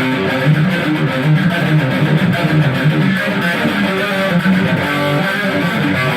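Electric guitar fitted with a custom Dialtone pickup set, played without a break through high-gain distortion, mixing chords and single notes.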